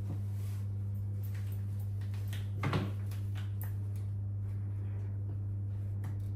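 Cloth rustling and soft handling knocks as a tablecloth is smoothed and tucked over a stacked storage box, with one louder brush or knock a little under three seconds in, over a steady low hum.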